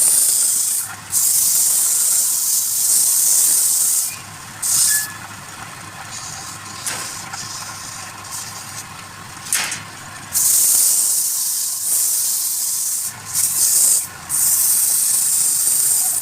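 A turning tool shaving wood on a spinning lathe, hissing in several long passes of a few seconds each, with a quieter gap in the middle over a faint low hum.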